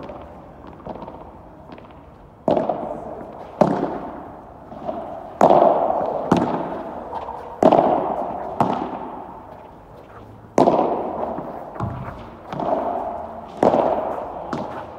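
Padel rally: a padel ball popping off rackets and bouncing, about ten sharp hits roughly once a second from a couple of seconds in, each echoing in the covered court hall.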